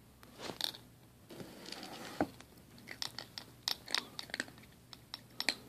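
A domestic cat crunching dry kibble from its food bowl: a quick, uneven run of sharp crunches in the second half, after some softer rustling and shuffling.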